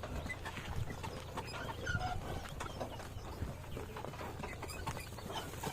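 Bullock cart under a heavy sugarcane load on the move: scattered knocks and clatter of hooves and the wooden cart over a steady low rumble.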